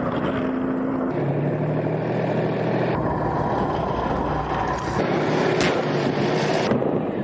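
Military vehicle engines running, in several short field-recorded clips cut together, so the engine note changes abruptly every second or two. A single sharp crack is heard past the middle.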